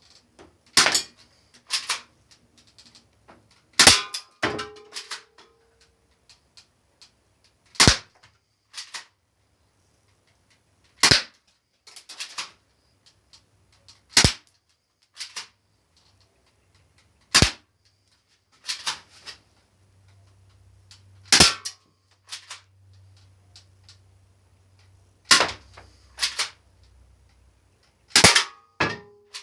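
Syma P698 toy BB pistol firing, with sharp cracks a second to a few seconds apart about fifteen times, and pellets hitting the targets. A couple of the hits leave a short ringing from a struck target.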